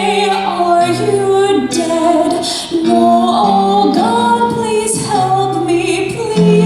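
A woman singing a slow, drawn-out melody in a live musical, over held low accompaniment notes.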